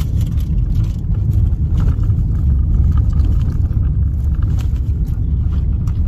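Steady low road-and-engine rumble inside a moving car's cabin, with faint light clicks over it.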